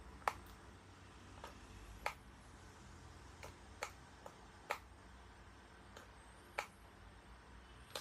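About nine sharp, irregular clicks from a hand on the plastic button panel of a GM Bear 2034 cordless stick vacuum, its motor switched off, over a faint low hum.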